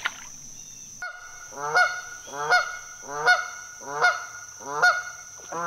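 An agitated goose honking over and over, about one honk every three-quarters of a second, starting about a second in; each honk rises in pitch. The goose is upset at the boat's approach.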